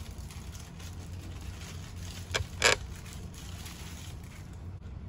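Clear plastic bag crinkling as it is handled, with two short sharp crackles about two and a half seconds in, the second louder. Underneath is a steady low hum.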